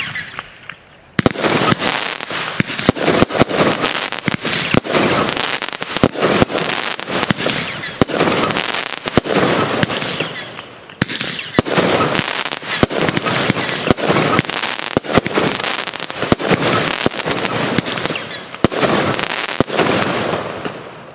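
Rubro 'Steel Rain' consumer firework going off: one sharp report at the start, then from about a second in a dense, continuous stream of rapid pops and bangs that eases briefly about halfway and again near the end.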